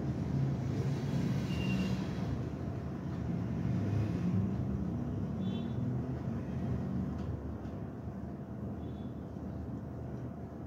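Steady low background rumble, with a few faint brief high tones at about two, five and a half and nine seconds in.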